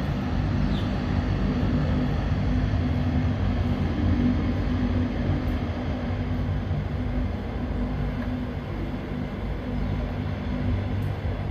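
Lockheed C-130 Hercules turboprop engines and propellers running: a steady low drone with a hiss over it.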